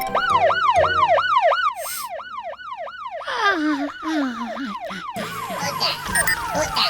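Cartoon siren sound effect, a fast up-and-down wail at about three sweeps a second. It drops in level about five seconds in, with a lower tone sliding down underneath just before that.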